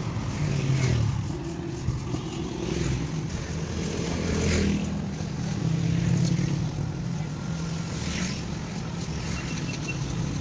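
Low, steady rumble of street traffic and engines, with faint background voices.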